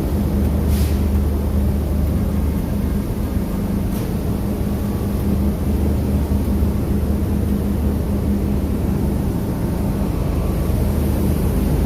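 Argon (TIG) welding: a steady low electrical hum from the arc and welding set, with a couple of faint clicks.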